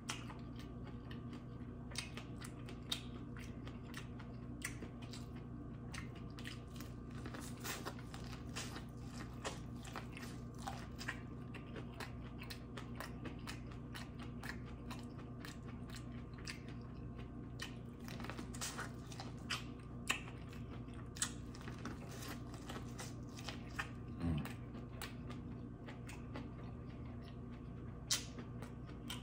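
A person chewing and biting food close to the microphone, with many small irregular crunches and mouth clicks, over a steady low hum.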